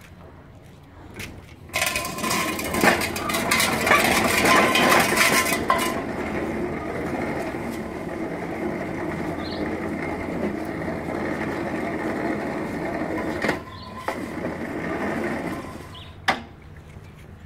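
Vintage 2 hp Briggs & Stratton single-cylinder engine on a reel mower running with a steady low hum. About two seconds in, a loud rattling clatter starts and lasts about four seconds. Then the mower runs with a steadier, quieter mechanical noise that drops away near the end, with one sharp knock.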